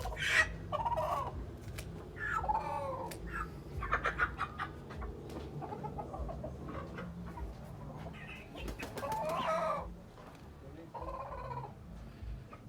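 Chickens clucking and squawking in short repeated calls, with scattered sharp clicks and rustles in between.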